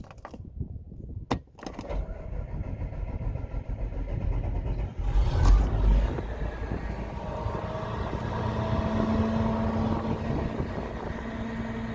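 Claas Lexion 650 combine harvester's diesel engine being started. A few knocks come first, then the engine cranks and catches with a loud surge about five seconds in, and it settles into steady running.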